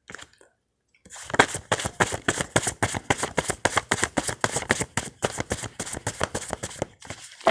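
Hand-shuffling a deck of index message cards: a rapid, continuous run of card clicks and slaps. It starts about a second in and lasts about six seconds.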